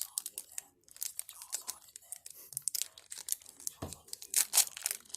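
Foil booster-pack wrapper being torn open by hand, crinkling and crackling in irregular short rips.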